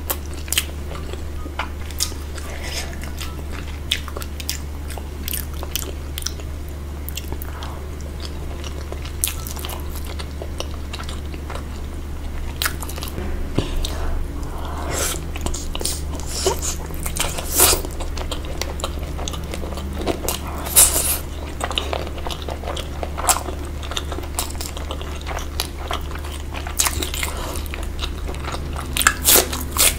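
Close-miked biting and chewing of crunchy food, a stream of irregular crisp crunches and crackles, busiest and loudest in the second half. A steady low hum runs underneath.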